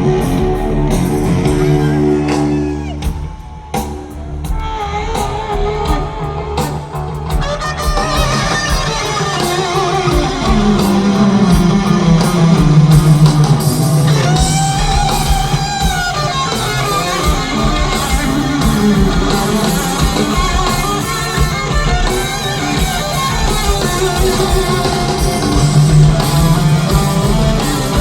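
Heavy metal band playing live, with electric guitar at the front. The sound thins out briefly about three seconds in, then the full band comes back in and builds.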